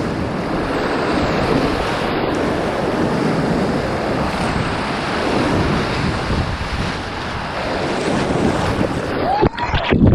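Loud, steady rush of river whitewater, with wind buffeting the microphone. Just before the end the noise turns choppy and splashy.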